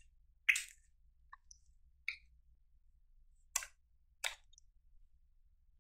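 Glittery slime being kneaded and poked with fingertips, giving a few short, sharp clicks and pops as trapped air breaks out of it; the loudest comes about half a second in, with others near two seconds and two close together later on.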